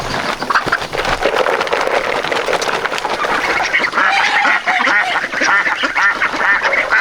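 A flock of birds calling together: many short, overlapping calls that grow busier about halfway through.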